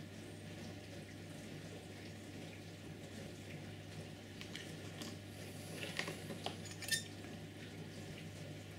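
A few small, light clicks and taps about five to seven seconds in, from fingers handling fine wires and the plastic chassis of a model locomotive during soldering, over a steady low hum.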